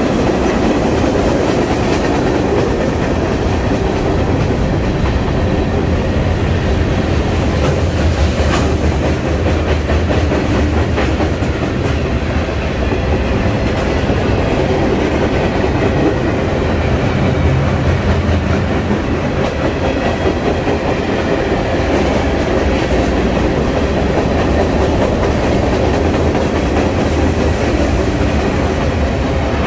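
A mixed freight train of tank cars, hoppers and boxcars rolling steadily past at close range: a loud, continuous rumble of steel wheels on the rails, with a few sharp clicks as the wheels cross the rail joints.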